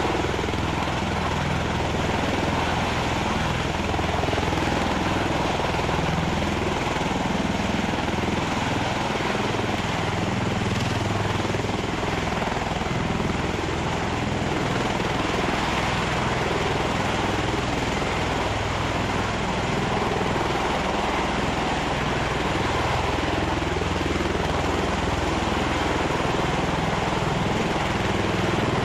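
V-22 Osprey tiltrotor hovering in helicopter mode: a steady, loud drone of its rotors and engines.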